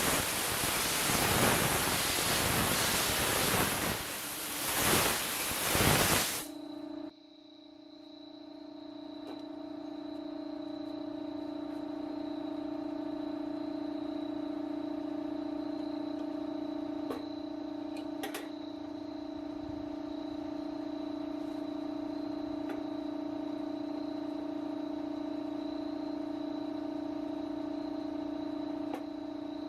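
A loud rough hissing noise, like abrasive blasting, spraying or sanding, for about six seconds, then it stops abruptly. A steady electric hum with a thin high whine continues, with a few faint clicks.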